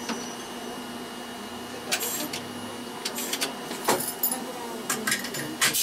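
Inside a standing 770-series tram: a steady electrical hum with a faint high whine, and from about two seconds in a scatter of sharp clicks and clatters.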